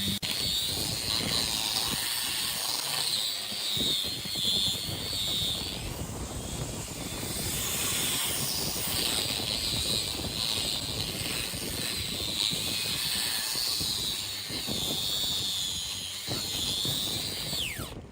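Electric power tool running with a high, wavering whine over a rough grinding noise; the whine drops in pitch just before the end.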